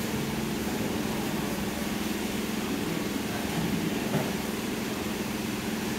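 Steady machine hum with a constant low drone, over an even background noise.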